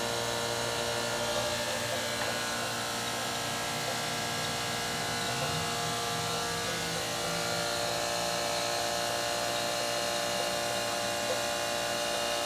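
Wotan 200/15-16 heavy-duty internal grinder running under power: a steady electric motor whine and buzz made of many held tones, with a short shift in pitch about halfway through.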